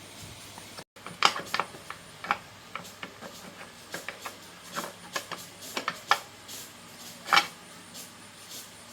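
Irregular sharp clicks and clinks of hand tools and small parts being handled during motorbike engine work, with two louder knocks, one about a second in and one near the end.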